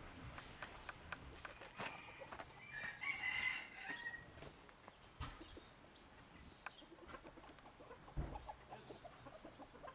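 A rooster crowing once, about three seconds in, faint against scattered light clicks and a couple of dull knocks.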